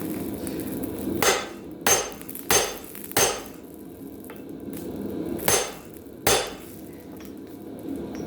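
Hand hammer blows on a punch driven into hot steel while a blacksmith's hammer head is forged: four strikes in steady rhythm, a pause, then two more, over a steady low hum.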